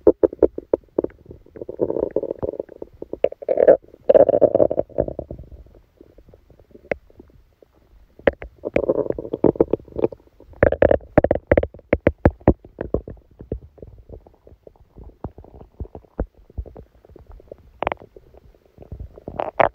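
A person's stomach and intestines gurgling and rumbling during a stomachache after a large dinner: rapid runs of bubbly pops and crackles with gurgling between them. It comes in busy stretches with quieter spells in between.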